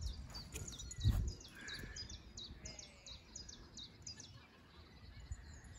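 Small birds chirping, a run of short high falling notes repeated a few times a second, over a low wind rumble on the microphone. There is a single low thump about a second in.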